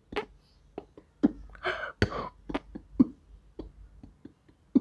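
Beatboxing: mouth percussion made with a hand cupped over the mouth. Short kick-drum-like thumps come roughly once a second, with sharp clicks and a few hissy snare-like sounds between them.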